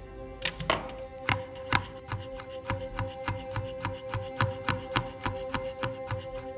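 Chef's knife chopping garlic directly on a glass worktop, rapid sharp taps of the blade against the glass, about four a second. Near the start there is a single crunch as a clove is crushed under the flat of the blade.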